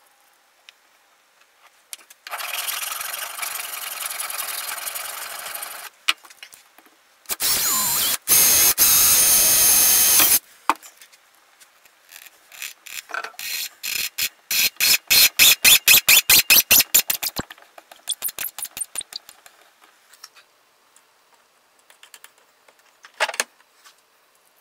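Metalworking on a small brass fitting clamped in a bench vise. There are two stretches of steady high-pitched noise, the second louder and with a squeal. Then comes a run of quick rasping strokes, about five or six a second, of a file on the metal, and a single knock near the end.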